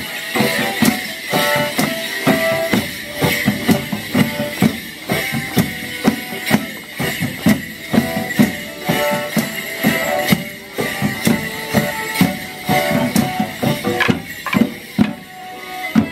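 Morris dance band playing a lively folk dance tune on drums and reed instruments, with a steady, driving drum beat.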